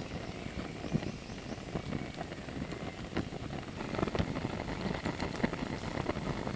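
Twig-and-stick wood fire burning in a small folding metal camp stove, crackling with irregular sharp pops over a steady hiss.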